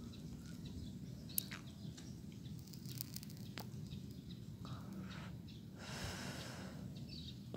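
Quiet outdoor background with a steady low hum. A couple of faint sharp clicks come in the first few seconds, and a brief rush of noise about six seconds in.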